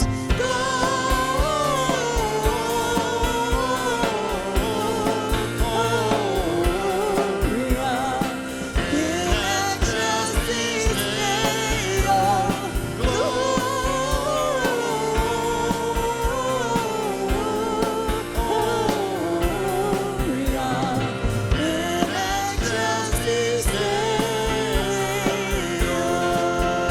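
Gospel-style worship song: a singing voice over a band, with sustained chords and a steady drum beat.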